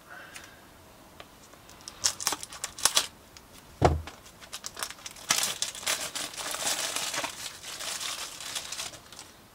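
Plastic shrink-wrap being cut and torn off a sealed trading-card booster box: a few sharp scratches and a knock in the first half, then a long stretch of crinkling plastic film.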